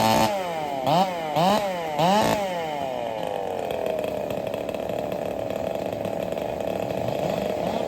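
A two-stroke race chainsaw revved hard and blipped three times in quick succession, its pitch dropping after each blip, then settling into steady running at lower revs.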